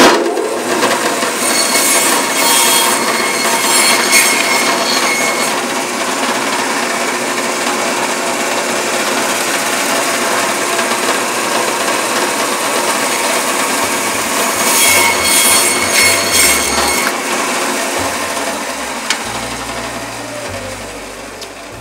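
Meat bandsaw running and cutting through bone-in beef short ribs, slicing the rib plate into strips. The noise starts abruptly, grows harsher twice as the blade goes through, and eases off near the end.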